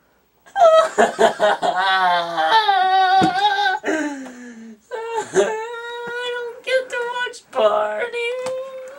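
A teenage boy's voice wailing and whining without words: several long, drawn-out cries that bend up and down in pitch, starting about half a second in.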